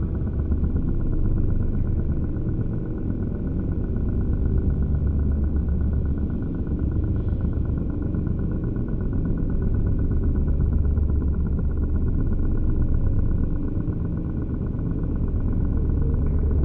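Background music: a deep, steady drone with a fast, even flutter, its weight in the low bass.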